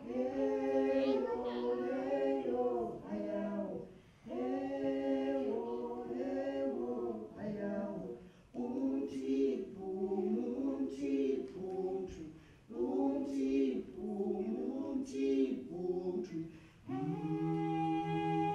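A small group of voices singing a cappella in harmony, in phrases of about four seconds with short breaks between them, moving into a long held chord near the end.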